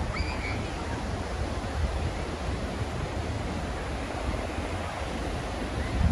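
Steady seaside wind and surf noise, with wind buffeting the microphone in a low, uneven rumble under the hiss of the waves.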